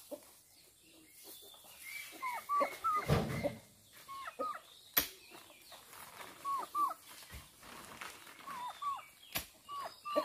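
Chickens clucking, short falling calls in pairs, again and again. A few sharp knocks mark oil palm fruit bunches landing in the dump truck's bed, one about five seconds in and another near the end.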